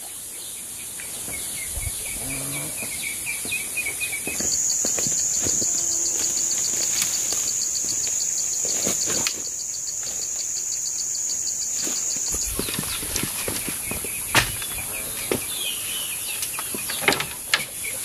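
Insects droning steadily in the background, with a louder, high-pitched pulsing insect buzz from about four seconds in until about twelve seconds in. Scattered short knocks and a few faint chirps sound over it.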